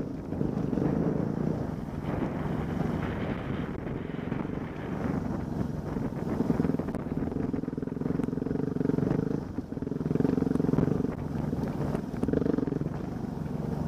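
Engine of an off-road vehicle running steadily over rough trail, its pitch rising and falling with the throttle, with a brief drop about ten seconds in.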